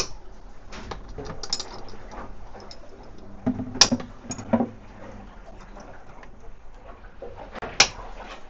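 Sharp clicks and knocks of hands working the plastic case and clips of a microplastic water-sampling unit. The loudest come about four seconds in and near the end, over a steady low hum.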